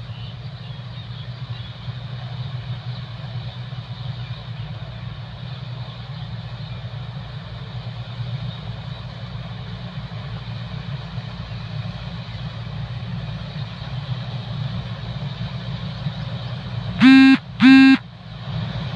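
Combine harvester engine running steadily, with two short, loud horn honks close together near the end.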